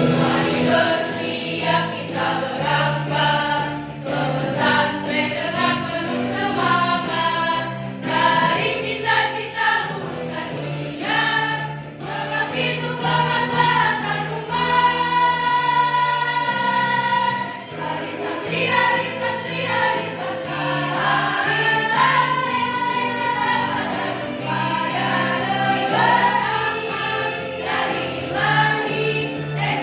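Girls' choir singing together over an instrumental accompaniment with sustained low notes.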